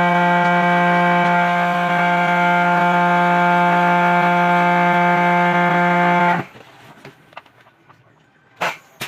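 A loud, steady mechanical hum at one fixed pitch with many overtones that cuts off abruptly about six seconds in, followed by faint clatter and a brief louder sound near the end.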